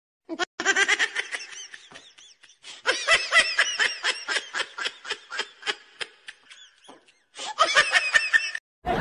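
Laughter: quick, high-pitched giggling and chuckling. It cuts in suddenly about half a second in, breaks off about seven seconds in and comes back briefly near the end.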